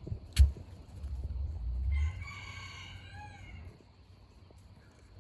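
A rooster crows once, a call of just under two seconds starting about two seconds in and falling away at the end. A sharp thump, the loudest sound, comes about half a second in.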